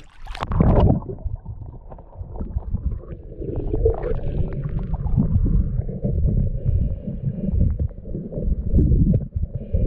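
Water heard through a submerged camera: a splash as the camera goes under, then muffled, churning underwater rumbling and gurgling as the snorkeler moves along the riverbed.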